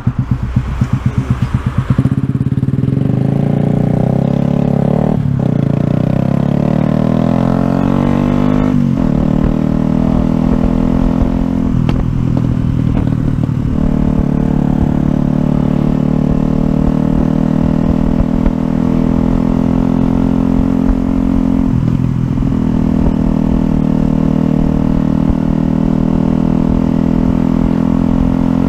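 Yamaha YZF-R125's 125 cc single-cylinder four-stroke engine pulsing at low revs for a couple of seconds, then pulling away. Its pitch climbs in steps as the rider shifts up about 5, 9 and 12 seconds in, and then settles at a steady cruise.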